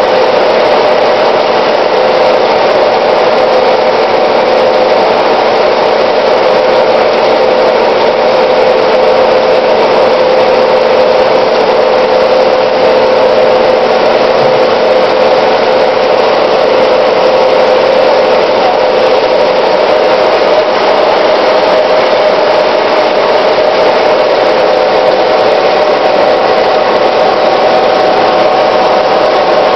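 A bank of small froth flotation cells running, their impeller drives agitating and aerating copper-ore slurry. The sound is a loud, steady machine drone with a constant hum that does not change.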